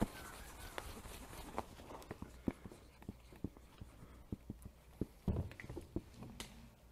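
Faint, irregular taps and clicks of dry-erase markers writing on small handheld whiteboards and the boards being handled.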